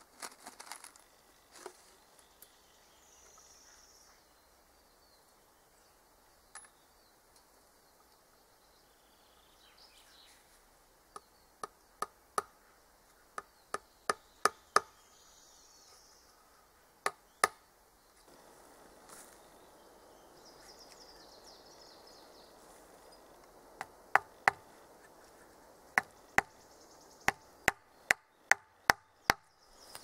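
Hammer striking wood, most likely driving nails: runs of sharp blows, two or three a second, starting about eleven seconds in, with a long pause in the middle and a steady run of strikes near the end.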